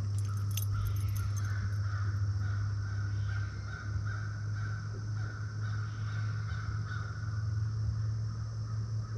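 A steady low motor hum, with a fainter wavering whine above it.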